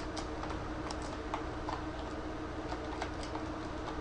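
Computer keyboard typing: a run of faint, irregular keystrokes over a steady low hum.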